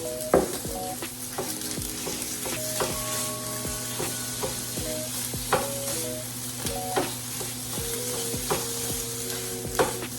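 Ground turkey and Italian sausage sizzling as they brown in a hot skillet, with a utensil stirring the meat and knocking against the pan several times.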